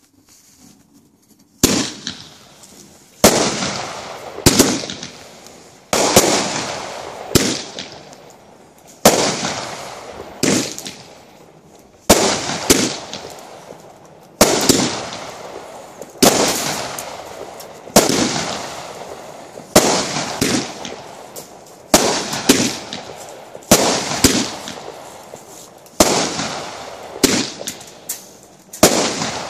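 World Class 'Money Box' 200-gram consumer fireworks cake firing its shots in sequence: sharp bangs about every one to two seconds, each trailing off, starting about two seconds in.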